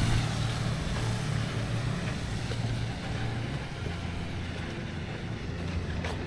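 A small engine running steadily, quieter in the middle of the stretch and growing louder again near the end.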